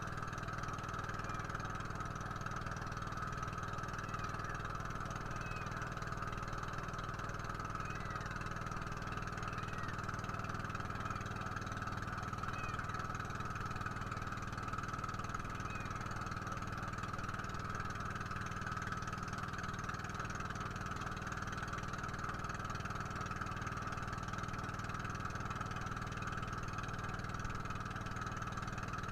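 Small boat's engine running steadily at an even speed, with no change in pitch or loudness.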